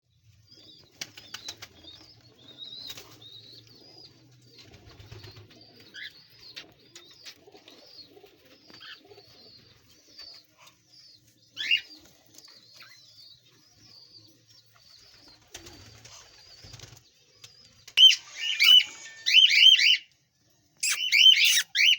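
Cockatiels chirping softly. About eighteen seconds in come loud, repeated rising-and-falling calls, several a second, in two runs with a short break.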